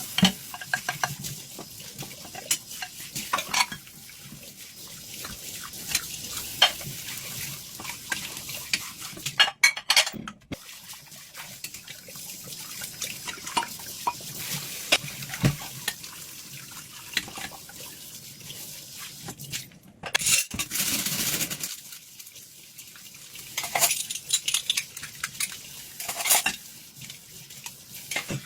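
Dishes being washed by hand: scattered clinks and knocks of dishes and cutlery with scrubbing and splashing, and a short rush of noise about twenty seconds in.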